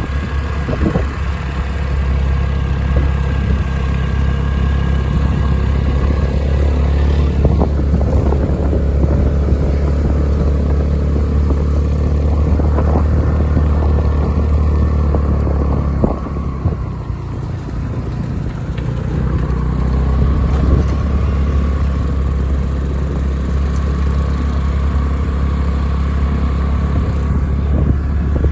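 Motorcycle engine running steadily while riding, with scattered knocks and rattles.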